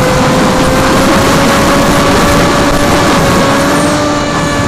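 An FPV quadcopter's electric motors and propellers whine steadily under a heavy rush of air noise, heard from its onboard camera. The pitch rises slightly near the end.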